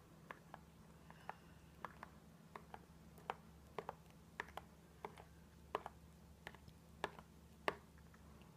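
A small plastic spoon clicking lightly and irregularly against a glass bowl, a couple of times a second, while stirring shaving foam into a glue slime mixture. A faint steady low hum runs underneath.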